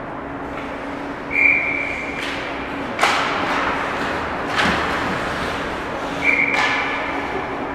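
Ice hockey play: two short, steady referee whistle blasts about five seconds apart, the second as play stops at the net. Between them come sharp knocks of puck and sticks, over a low steady hum of the rink.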